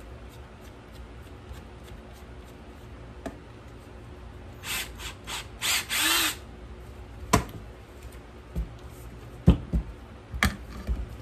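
Old Ryobi cordless drill run in several short bursts a little under five seconds in, the last one longest as the motor spins up: the chuck being spun on a fresh bit. A few sharp knocks follow as the drill and the PVC pipe are handled.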